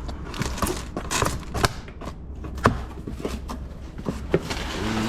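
Packaging and parts being handled: scattered light clicks, knocks and rustles over a low steady hum, with one sharper click about two and a half seconds in.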